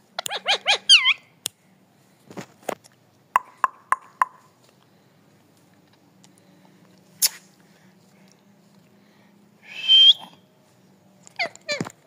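Rose-ringed parakeet (Indian ringneck) calling: a quick run of rapid, pitch-bending chattering notes at the start, a few scattered clicks, a short screech about ten seconds in, and another rapid run of calls near the end.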